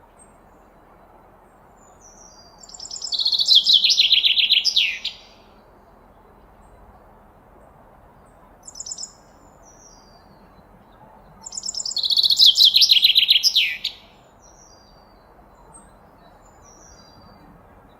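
Small songbird singing two loud, fast descending trills about eight seconds apart, with a short burst and a few soft high calls between them.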